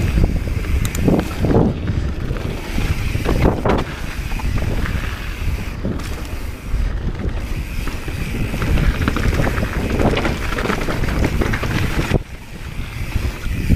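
Mountain bike descending a dirt singletrack: wind rushing over the handlebar camera's microphone, with tyres rumbling on the dirt and knocks and rattles from the bike over bumps. The noise eases briefly near the end.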